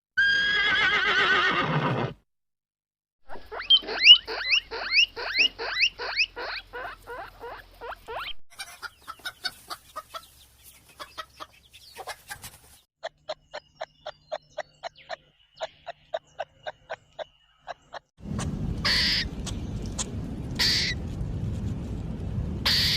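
A run of different animal calls, one after another: a falling call about two seconds long, then about five seconds of rapid repeated calls. These are followed by a stretch of quick clicks and evenly spaced pulses, and near the end a steady rushing noise broken by a few sharp bursts.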